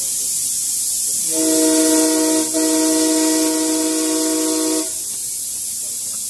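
Miniature steam locomotive letting off steam with a loud hiss that starts suddenly, while its whistle gives one steady blast of about three and a half seconds, several tones at once, with a brief catch partway through.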